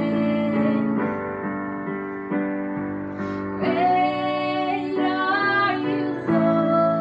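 Worship song: a woman singing over sustained keyboard chords.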